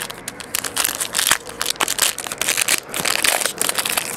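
Shiny foil trading card pack crinkling and crackling as hands handle it and pull it open.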